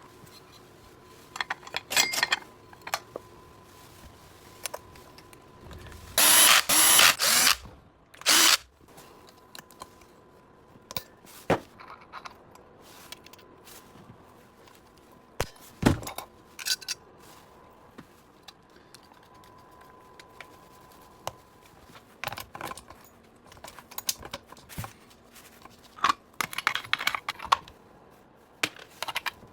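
Tools and small metal parts being handled on a workbench: scattered clicks, knocks and rattles. A loud hiss lasts about a second and a half some six seconds in, with a shorter one about two seconds later.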